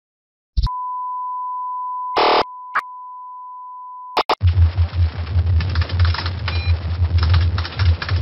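Broadcast test-card tone: a steady pure beep that starts about half a second in, with a short burst of static across it midway. Just after four seconds it cuts off and is replaced by harsh crackling static over a heavy low buzz, flickering in loudness, like a broadcast signal being hijacked.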